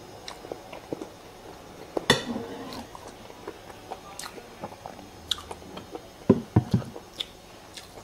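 Close-up wet, sticky clicks and squelches as a spoon lifts a sauce-coated balut and hot sauce is squeezed from a plastic squeeze bottle over it. A sharper click comes about two seconds in, and a cluster of louder ones near the end.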